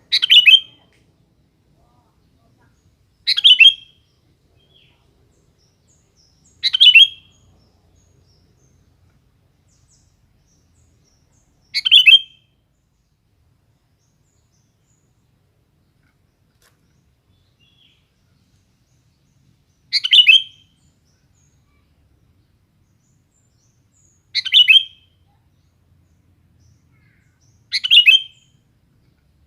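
Sooty-headed bulbul (kutilang) calling: seven short calls, each about half a second long, at uneven intervals of a few seconds.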